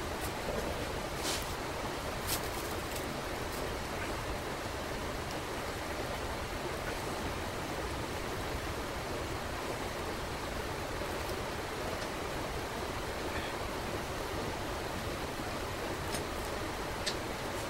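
A steady, even rushing hiss, with a few light clicks of metal hydraulic pump parts being handled on the bench.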